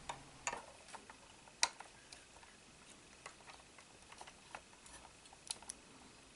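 A few faint clicks and taps of plastic parts being handled as a distributor cap is pressed onto a clear plastic model V8 engine kit, the sharpest about one and a half seconds in.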